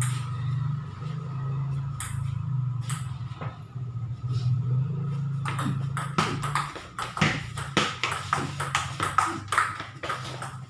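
Table tennis rally: the ball clicks sharply off the rubber paddles and the Tibhar table, a few hits early and then a quick, continuous exchange from about halfway. A low steady hum runs underneath and stops about two-thirds of the way through.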